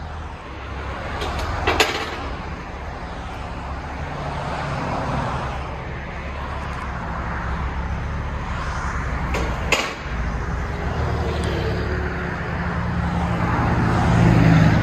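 Supercharged 3.0-litre V6 of a 2015 Audi S5 running at low speed while the car reverses slowly, heard through a dual exhaust whose resonator has been replaced with an X-pipe. The low rumble grows steadily louder toward the end, and there are two sharp clicks, about 2 and 10 seconds in.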